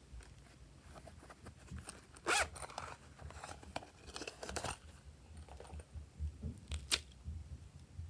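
Slime being worked by hand, giving bunches of sticky crackles and pops, with the loudest about two seconds in, near the middle and near the end.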